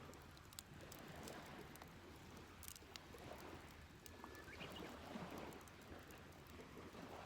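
Faint crackling and ticking of a campfire, with scattered sharp pops over a soft background hiss.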